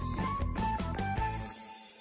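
Instrumental background music with a steady beat. About one and a half seconds in, the bass and beat drop out and the music starts to fade.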